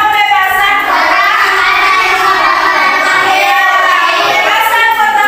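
A group of children singing a song together, a continuous melody with long held notes.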